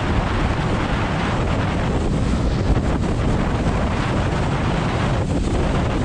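Steady wind noise buffeting the microphone of a sled speeding downhill at around 50 km/h, mixed with the rush of the sled sliding over packed snow.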